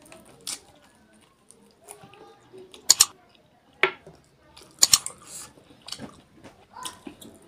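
Close-miked chewing of duck meat in curry, with wet smacking and several sharp clicks as meat is pulled off the bone.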